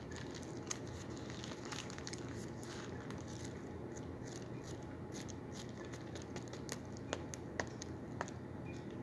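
Faint handling noise near the microphone: soft rustles and scattered small clicks over a steady low room hum, with a few sharper ticks near the end.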